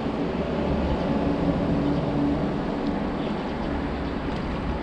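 Traffic on the elevated highway overhead: a steady low rumble, with a vehicle's hum swelling about a second in and easing off near three seconds.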